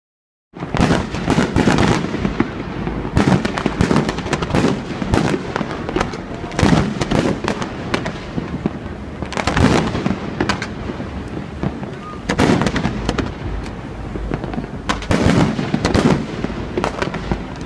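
Aerial fireworks shells bursting in quick succession, starting about half a second in: a dense run of bangs that come in clusters every few seconds.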